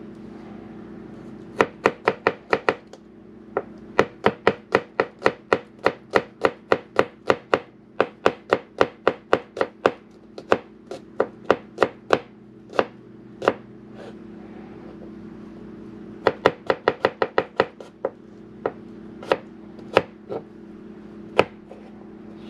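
Kitchen knife chopping on a cutting board: runs of quick, even strokes about three to four a second, stopping and starting in several bursts with short pauses between.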